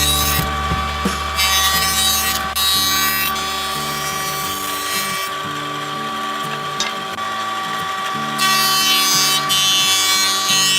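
A power tool running in bursts, once for about two seconds a little after the start and again for about two seconds near the end, over a steady hum.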